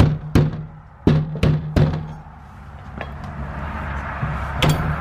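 Hammer blows on a metal lock: two sharp knocks at the start, three quick ones about a second in, and two more near the end.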